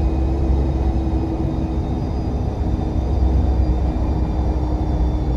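Steady low vehicle rumble with a faint constant hum, as from a car on the move.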